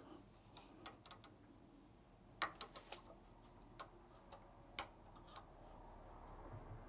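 Faint, irregular metal clicks and ticks from the spindle retaining nut of a Bridgeport-type milling machine being turned by hand into line.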